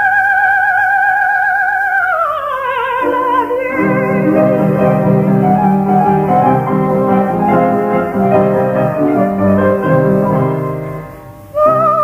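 A coloratura soprano holds a high note with a wide vibrato, then glides down in a descending run about two seconds in. The accompaniment then takes over with an instrumental interlude, dips briefly, and the voice comes back in with short high notes near the end.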